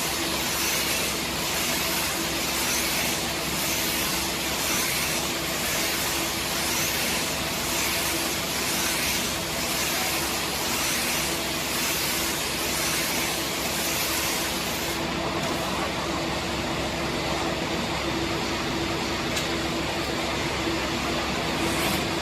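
A baling machine running steadily: a continuous mechanical hiss with a steady hum and a faint regular pulse about once a second. The highest part of the hiss drops away about two-thirds of the way through.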